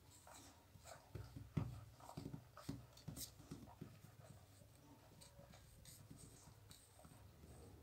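Faint, irregular soft smacking and rustling of young pit bull puppies suckling at their mother's teats, busiest in the first half.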